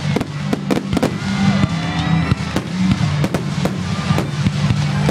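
Aerial fireworks shells bursting: a rapid, irregular series of sharp bangs and crackles, several a second, over steady background music.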